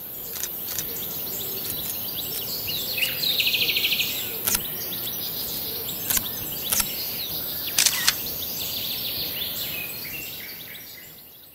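Birds chirping over a steady outdoor hiss, including a fast trill, with several sharp camera-shutter clicks. The sound fades out near the end.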